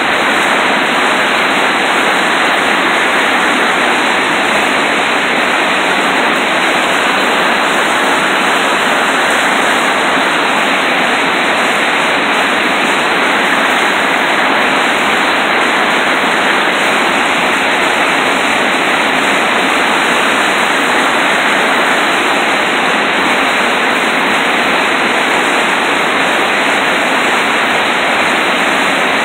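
River whitewater rushing through a rapid: a loud, steady rush of water that holds without a break.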